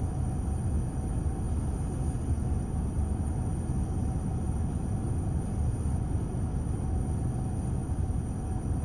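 Steady low rumble of road traffic idling while stopped, with a faint steady hum over it.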